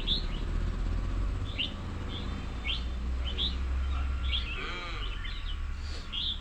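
Birds chirping: short, sharp chirps repeat about once a second, with a longer, wavering call about two-thirds of the way through, over a steady low rumble.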